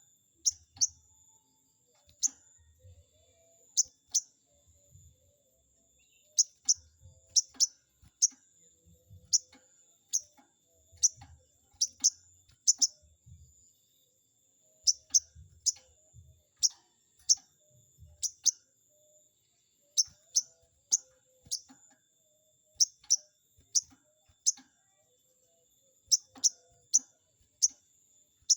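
Sogon bird calling: a run of short, sharp 'cuiit' chirps that sweep down in pitch, often doubled, coming irregularly about once or twice a second. It is the kind of call used as a lure to provoke rival sogon birds into answering.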